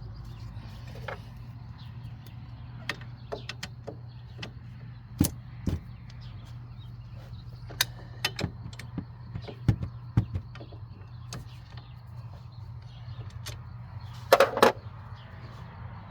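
Hand-tool work on a car's front wheel hub: scattered sharp clicks and knocks of metal parts and tools, with a short cluster of louder knocks near the end, over a steady low hum.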